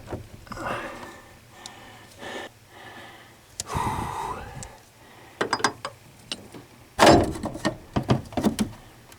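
Metal clunks and knocks as a replacement truck door hinge is worked and pried into place between the door and the cab. The knocks come in a run in the second half, the loudest about seven seconds in.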